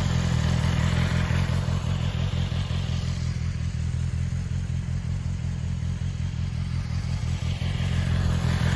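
BMW S1000RR's inline-four engine idling steadily.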